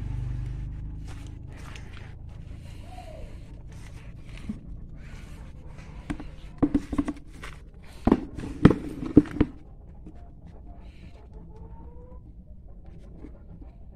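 A run of sharp knocks and clatter from a bolted mold shell being taken apart and opened, loudest a little past the middle, with quieter handling noises around it.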